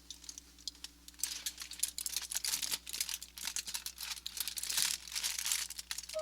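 Crumpling and rustling of a crinkly sheet being handled: dense, irregular crackling that starts faint and grows louder about a second in.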